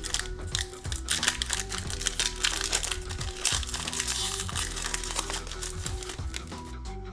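Crinkling of a trading-card pack's wrapper as it is opened and handled, over steady background music. The crinkling dies down near the end.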